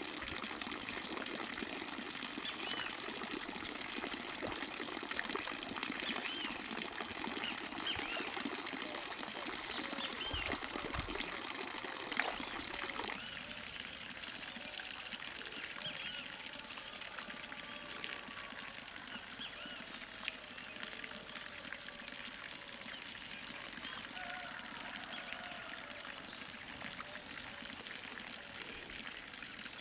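Steady rush of running water with faint, high chirps of small birds. The background changes abruptly about thirteen seconds in and becomes thinner.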